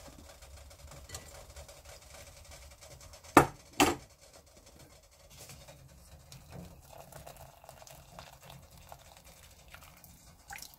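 Two sharp metal knocks about half a second apart, a few seconds in, over faint background noise: a stainless mesh strainer striking the pot as blanched chili pepper leaves are lifted out of the hot water.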